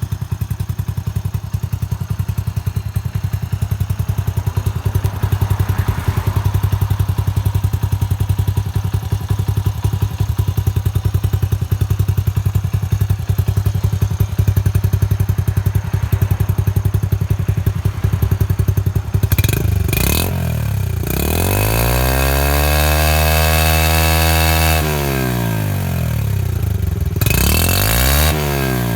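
Motorcycle exhaust through a black monaka-style aftermarket muffler with its silencer baffle removed, a dry sound. The engine idles steadily with a fast even pulse, is blipped about two-thirds of the way in, then held at higher revs for a few seconds before dropping back, and is blipped once more near the end.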